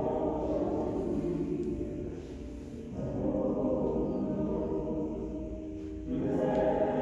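Church singing with musical accompaniment, in held phrases with a short break about two seconds in and another near the end.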